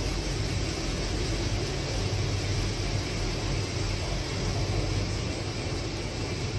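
SASE PDG-5000 planetary diamond floor grinder running steadily as it grinds a concrete slab: a continuous, even grinding noise over a low hum.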